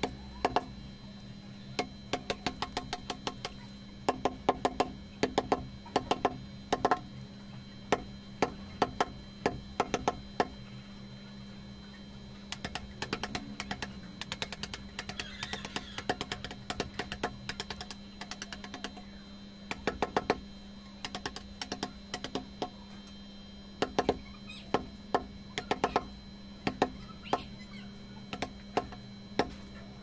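Mallet striking a chisel into a natural-stone relief panel: sharp taps in irregular runs, lighter and quicker for a while around the middle, over a steady hum.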